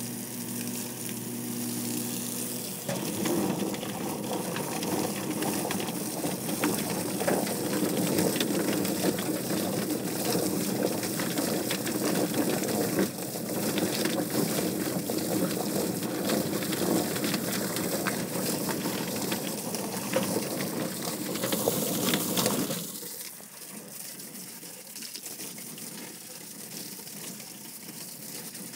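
Rotary drum chicken plucker running with a hose spraying water into it. About three seconds in, a scalded chicken goes in and tumbles against the spinning rubber plucking fingers, a loud churning full of quick knocks, as its feathers are stripped. The machine cuts off suddenly near the end, leaving only the hose water splashing into the drum.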